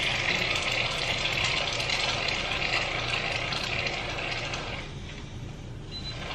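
Aerosol can of vanilla Whipshots whipped cream hissing steadily as it is pressed to dispense, with a short break about five seconds in. The can is struggling to put out cream, and she wonders if it is dysfunctional.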